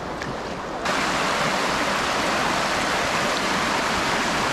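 Waterfall rushing: a steady, dense roar of falling water that jumps louder and fuller less than a second in, then holds steady.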